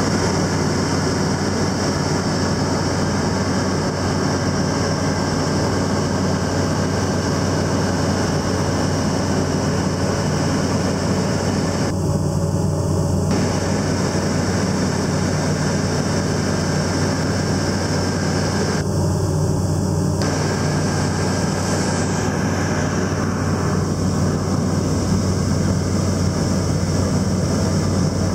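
Piston engine and propeller of a light high-wing aircraft droning steadily in flight, heard inside the cabin.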